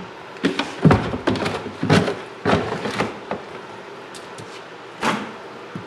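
Meat scraps being gathered by hand from a utility sink into a plastic bag: irregular knocks and thuds against the sink with bag rustling, busiest in the first three seconds, with one more knock near the end.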